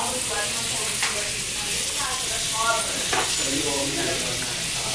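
Butter melting and sizzling in hot oil in frying pans, a steady hiss.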